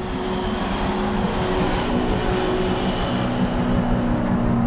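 Giant mining haul truck's diesel engine running under load as the loaded truck drives toward the camera, a steady drone that rises slightly in pitch near the end as it puts out black exhaust smoke.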